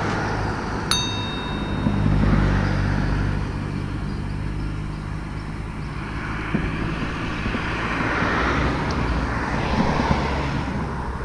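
Road traffic: cars passing on the road, engine hum and tyre noise swelling and fading twice. A short ringing click about a second in.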